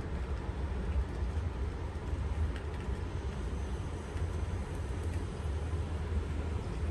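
Steady, deep rumbling noise played as a sleep and relaxation sound, even and unbroken, with no distinct events.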